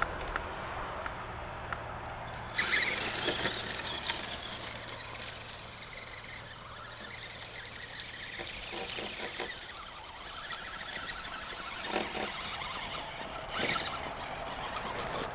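Axial SCX-10 electric scale crawler driving over grass and dirt, with the faint high whine of its motor and gears and its tyres rustling and crunching over the ground. A couple of sharp knocks come near the end as it climbs the rocky slope.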